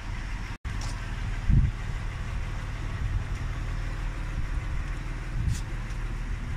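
A steady low mechanical hum of running machinery, with a brief cut-out of all sound just after half a second in and a short low thump about a second and a half in.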